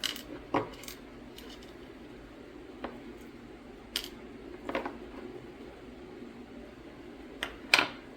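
Small metal carburetor parts and tools clinking and tapping on a workbench as the carburetor's pump side is taken apart: a handful of separate sharp clicks, the loudest near the end.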